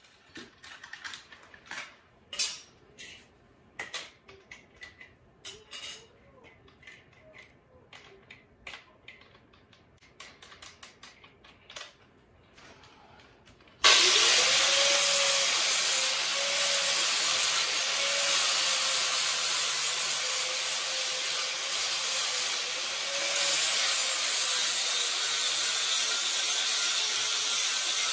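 Scattered light clinks and taps of tools and metal being handled for roughly the first half. Then an angle grinder starts abruptly and runs steadily against steel on the kart's motor-mount area, its motor note wavering slightly as it bears on the metal.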